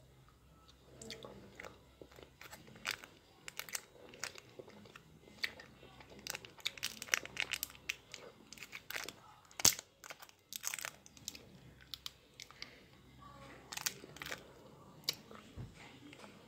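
Chewing a sour apple Laffy Taffy while its paper wrapper is handled and folded, crinkling in short, irregular crackles, with one louder click about ten seconds in.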